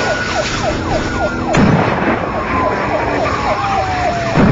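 Police sirens during a pursuit: one tone wailing slowly up and down while a rapid yelp repeats several times a second, over steady engine and road noise. A sharp knock cuts through about a second and a half in.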